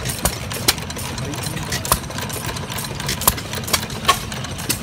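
Antique flywheel stationary gas engines running, a steady low chugging broken by sharp pops at uneven intervals, about one or two a second.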